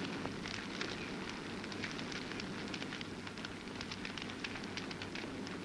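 Wood fire of a burning pyre crackling, with many small irregular snaps over a steady rushing noise and a low steady hum beneath.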